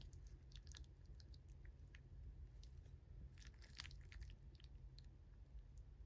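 Near silence with faint, scattered wet clicks and crackles from chopsticks lifting and turning sticky stir-fried udon noodles topped with bonito flakes, heaviest about a second in and again in the middle.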